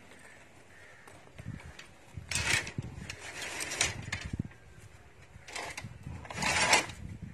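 Rusty iron collapsible gate being handled and pushed, its metal bars rattling and scraping in several irregular bursts, the loudest near the end.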